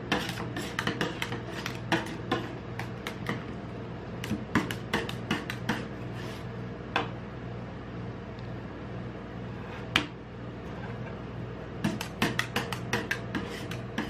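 Metal spatulas tapping and scraping on a rolled-ice-cream cold plate as they chop and spread the frozen ice cream mix. Quick runs of sharp clicks in the first few seconds, only a few in the middle with one louder clack about ten seconds in, then another quick run near the end, over a steady low hum.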